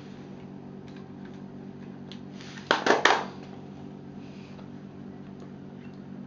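A brief cluster of sharp clicks and rattles of small hard plastic parts, about three seconds in, over a steady low hum.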